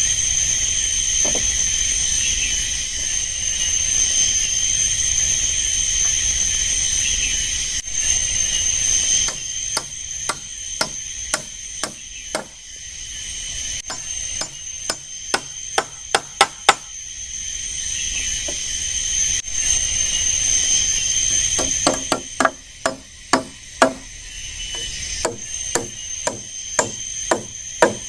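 Repeated sharp tool blows on wood, starting about a third of the way in and coming in runs of roughly two strikes a second, with a pause in the middle. Under them runs a steady high-pitched drone of forest insects.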